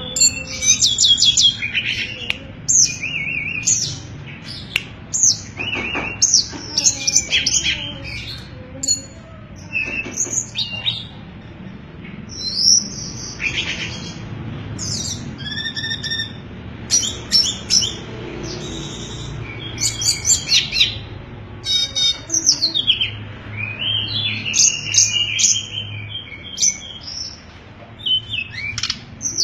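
A tledekan songbird singing loudly and continuously. Its song is a run of short, high, clear chirps and quick trills in rapid clusters with brief pauses between them, the flute-like sulingan song.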